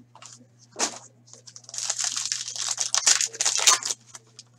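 Plastic foil wrapper being torn open and crinkled off a pack of hockey cards, a dense crinkling that runs for about two seconds from just under two seconds in, after a few light clicks of handling the box.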